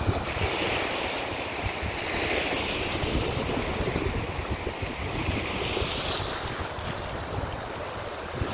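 Small surf washing up a sandy beach, swelling and fading every few seconds, with wind buffeting the microphone.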